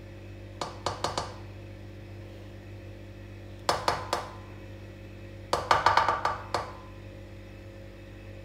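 Three quick runs of light taps with a short metallic ring: a plastic measuring cup knocked against the rim of an aluminium karahi to shake out the last of the oil. A steady low hum sits underneath.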